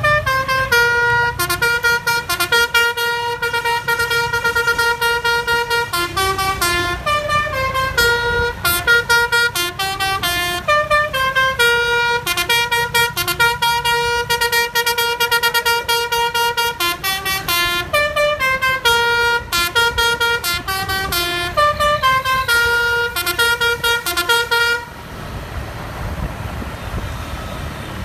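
Basuri musical bus horn (telolet) on an Aceh intercity bus playing a long running tune of quick stepped notes. The tune stops a few seconds before the end, leaving the rumble of the bus engine and road noise.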